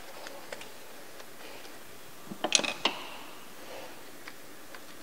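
Small plastic clicks and rattles from fuel-injector wiring connectors being unlocked and unplugged by hand, with a quick cluster of sharp clicks about halfway through as the loudest moment.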